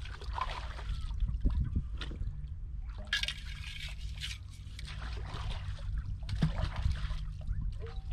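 Water trickling and sloshing in a shallow rock pool as hands reach into it and lift out, with a brighter splash about three seconds in.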